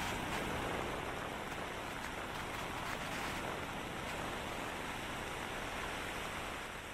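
Steady hiss of busy city street ambience in the rain: traffic and tyres on wet road, with no distinct events standing out.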